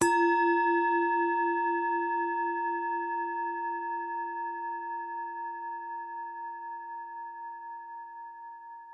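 A singing bowl struck once, ringing with a low tone and several higher overtones that slowly fade away with a steady wavering.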